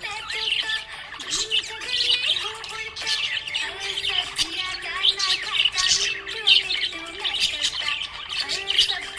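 Budgerigar chirping and warbling: a rapid, unbroken stream of short chirps.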